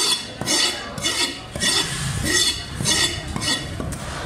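Heavy cleaver chopping fish on a wooden log chopping block: about seven blows a little over half a second apart, each with a short metallic ring. The chopping stops near the end.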